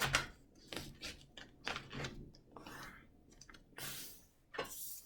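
A sheet of paper being folded and creased by hand: irregular short crinkling and rubbing strokes as the folds are pressed flat.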